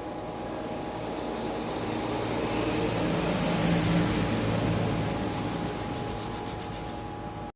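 Handheld electric woodworking power tool running and cutting into wood: a steady motor hum under a rough cutting noise that grows loudest a few seconds in and then eases off.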